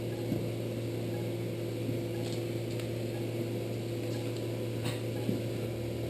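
Steady electrical hum of operating-room equipment, with a few faint clicks of instruments.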